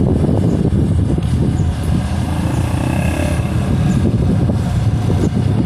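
Diesel rail vehicle running past at close range: a loud, steady low rumble.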